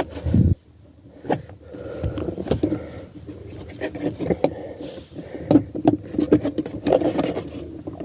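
Irregular plastic clicks, scrapes and knocks as the lower steering column cover of a 2001 Chevy Impala is worked loose from its hidden retaining hooks, with a dull thump right at the start.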